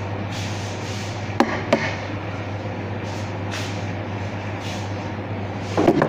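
A steady low mechanical hum, with two sharp clinks about a second and a half in and a clatter near the end as a plate of rice is set on the table.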